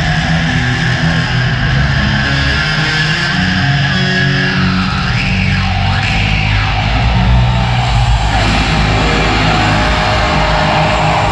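Electric bass guitar solo played live through a stadium sound system, a run of low notes heard from far up in the stands.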